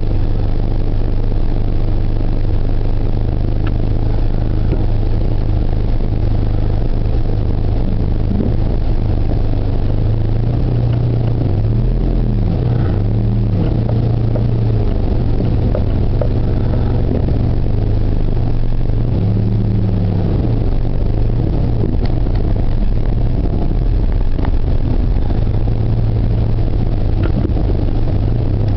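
Car engine and road noise heard from inside the moving car: a steady low drone, with the engine note rising and falling a few times around the middle.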